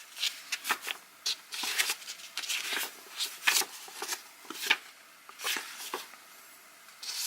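Paper and packaging being handled, rustling in a string of short, dry strokes.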